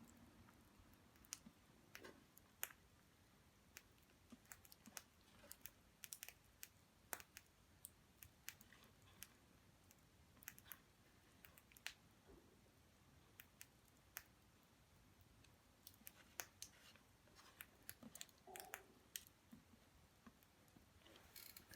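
Faint, irregular sharp clicks and ticks scattered over near-silent room tone, a few every second at most.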